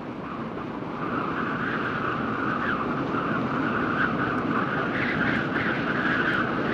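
A vehicle engine running steadily as a dubbed-in sound, getting louder about a second in.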